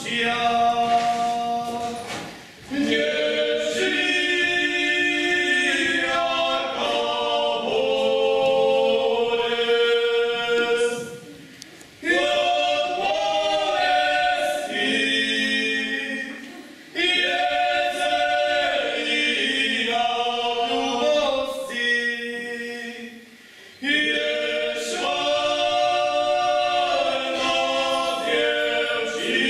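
A group of voices singing a folk song unaccompanied, in held phrases of about five to seven seconds with short breaks between them.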